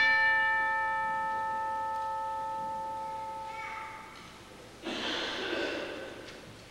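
Altar bell struck once at the elevation of the consecrated host, ringing clearly and fading away over about four seconds. A second, shorter and noisier sound follows about five seconds in.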